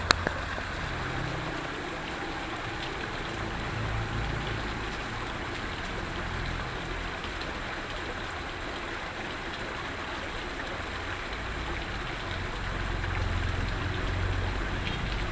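Steady hiss of rain, with uneven low rumbling on the microphone.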